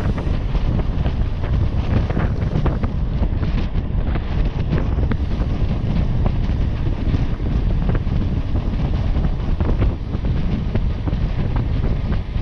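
Wind buffeting the microphone of a camera riding on a moving bicycle: a steady low rumble, with faint scattered clicks.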